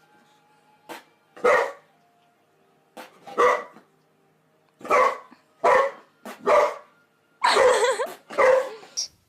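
A dog barking: single sharp barks with pauses between them, coming closer together in the second half.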